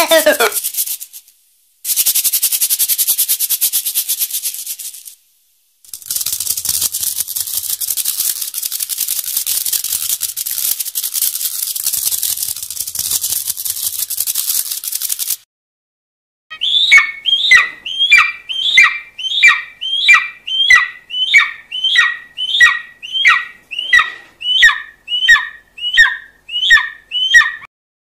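Rapid, dry rattling in two long stretches, then a steady run of short chirping squeaks, about two a second, each falling in pitch.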